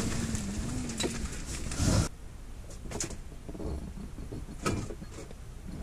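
Wind buffeting the microphone out on the open ice for about two seconds. It drops off suddenly to a quieter stretch inside a fabric ice-fishing shelter, where a few soft clicks and rustles come from handling the rod and reel.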